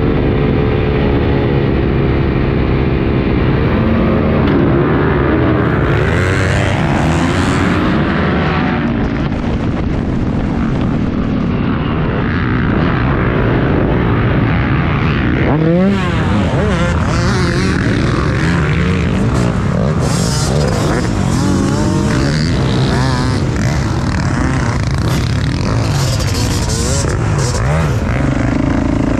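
Several MX1 motocross bikes' engines running hard and revving, their pitches rising and falling as they accelerate, shift and pass.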